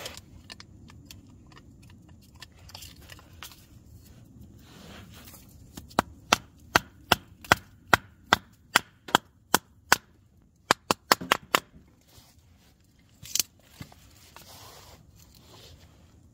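Small hatchet chopping a stick of kindling: a run of about a dozen sharp wooden knocks, two or three a second, then a quicker cluster of five and one last knock a couple of seconds later.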